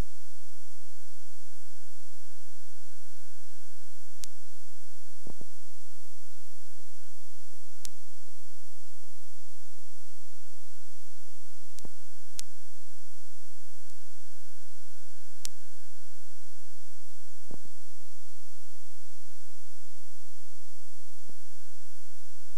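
Steady electrical hum with a thin, slightly wavering high whine, broken by a few faint clicks.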